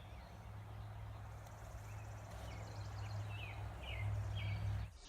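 A bird chirping repeatedly, short downward chirps about half a second apart, over a low steady outdoor rumble. The sound cuts off abruptly near the end.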